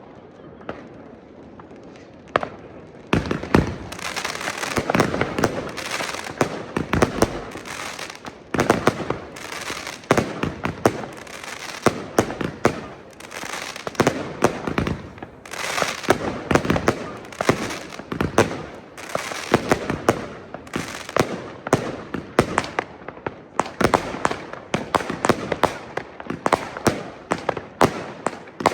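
F2 consumer fireworks going off in a dense barrage of rapid bangs and crackling, starting about three seconds in after a few scattered pops.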